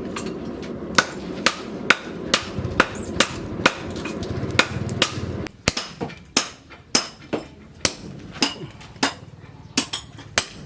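Hammer blows on steel during forging, about two strikes a second, each with a brief metallic ring. A steady low hum runs under the first half of the blows and stops about halfway.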